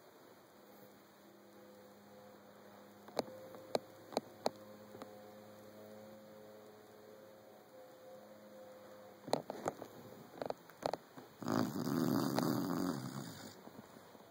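Five-month-old Saint Bernard puppy snoring in its sleep: a faint steady hum with a few sharp clicks, then one loud, rasping snore lasting about two seconds near the end.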